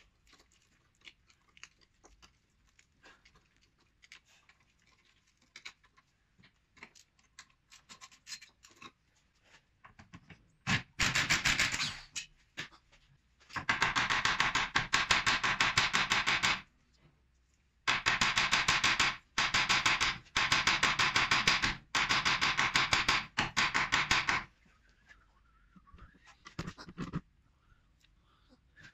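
Time-lapsed work on a car's front suspension: scattered light clicks of tools, then from about ten seconds in several long runs of rapid, loud metal-on-metal hammer strikes, driving the hub down off the strut's shock body.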